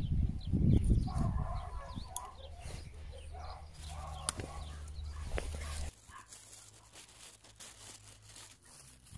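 Domestic hens clucking in the background, a run of short calls during the first few seconds, over a low rumble near the start.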